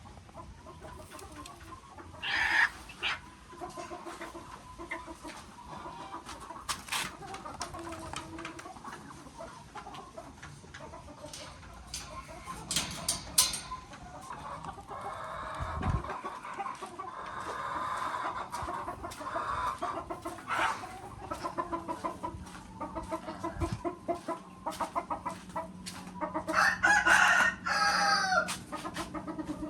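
Chickens clucking and calling, with a rooster crowing; the loudest call comes near the end.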